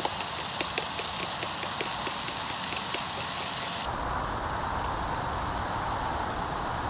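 Fork whisking eggs in a plastic bowl, tapping the bowl about five times a second over a steady hiss. About four seconds in the tapping gives way to a steady, lower rushing noise.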